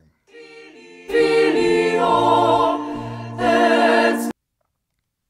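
Student chorus singing a short phrase of sacred polyphony, auralized with the acoustics of the Sant'Aniceto church enlarged to twice its volume. It begins softly, swells into full chords about a second in, and cuts off suddenly.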